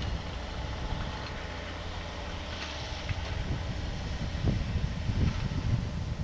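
Yanmar ViO57 mini excavator's diesel engine running with a steady low rumble as the arm moves the bucket, with a few soft knocks in the second half. Wind on the microphone adds a hiss.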